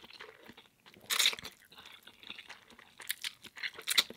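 A person slurping and chewing instant ramen noodles, with a louder slurp about a second in and a run of sharper slurping and smacking sounds near the end.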